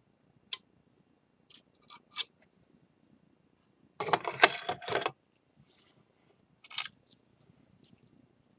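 Small tools and ceramic bowl pieces handled on a work surface: a few light clicks and clinks, and a louder scraping rattle lasting about a second, about four seconds in.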